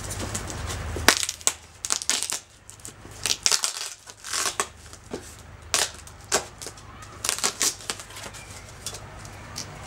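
Cardboard box being cut open: packing tape slit with a metal glove blade and the flaps pulled apart, making irregular scratchy rips and crinkles.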